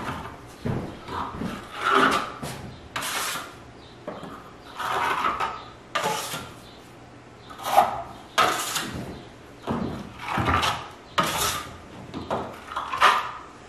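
Steel finishing trowel scraping Diamond veneer plaster across a drywall wall, about a dozen short strokes at an uneven pace, many starting with a sharp click of the blade. This is the rough first coat being laid on, to be troweled smooth on a second pass.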